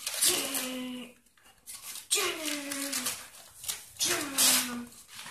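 Gift-wrapping paper rustling and tearing as a boxed BB pistol is unwrapped by hand. Three short cries falling in pitch come through it, about two seconds apart.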